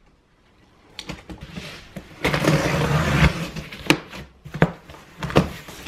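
Packing tape being slit and torn along the seam of a cardboard box, with a rasping tear about two seconds in. Then come several sharp cardboard knocks and snaps as the flaps are pulled open.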